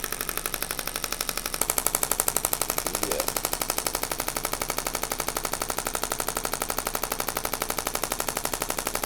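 Radial shockwave therapy handpiece firing a rapid, even train of sharp clicking pulses into the lower back. It gets louder about one and a half seconds in as the intensity ramps up.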